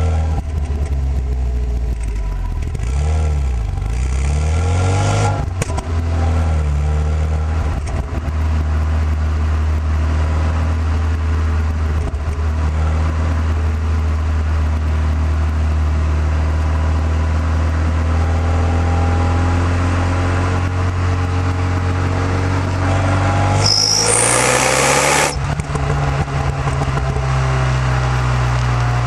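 Renault Mégane R26's 2.0-litre turbo four-cylinder through its stock exhaust, running under way: the engine note rises and falls for the first few seconds, then holds steady. Toward the end a loud hiss of about a second sweeps over it and the engine pitch steps up.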